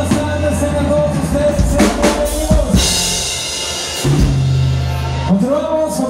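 Live norteño band music with bass and drum kit: a held note over the bass, then a drum fill and a cymbal crash about two to three seconds in, followed by a long held low bass note as the song closes.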